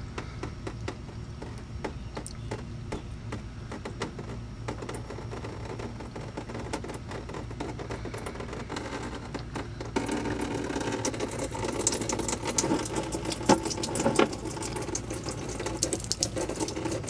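Diesel fuel draining from the loosened drain plug of a 2004 Ford F250 6.0 diesel's fuel water separator, dripping into a bucket underneath. About ten seconds in the flow picks up into a louder, steady splashing.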